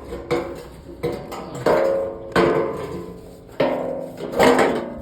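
A series of hard strikes, about six, unevenly spaced roughly a second apart. Each one rings briefly with a pitched tone before fading.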